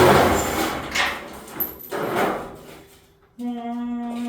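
Rough scraping and rubbing of truck body parts being pulled and shifted, in three bursts, the loudest at the start. Then a person hums one steady note for nearly two seconds.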